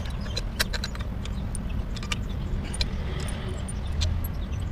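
Irregular light metallic clicks and clinks from loose steel bolts and the right-side crankcase cover of a Honda EX5 engine being handled as the cover's bolts are taken out and gathered.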